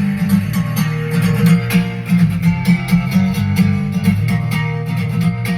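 Music with strummed guitar and a heavy bass line playing loud through a boat's Wetsounds Stealth 6 Surge soundbar and Stealth AS-10 10-inch subwoofer.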